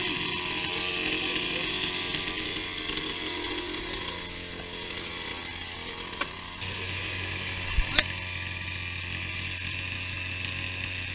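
Chainsaw idling steadily, with a few sharp knocks about eight seconds in.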